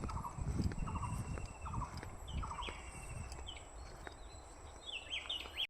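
Birds calling: a short, repeated call roughly once a second, mixed with higher chirps from other birds, over an irregular low rumble and a faint steady high whine.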